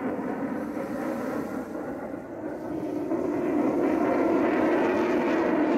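Jet engine noise from an F-35A's single F135 turbofan as the fighter flies a demonstration pass overhead, a steady noise that grows louder about three seconds in.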